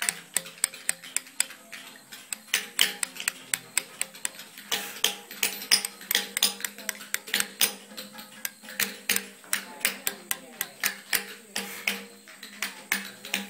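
Hammer driving a steel chisel into a stone slab by hand: a steady run of sharp, ringing taps, about three a second.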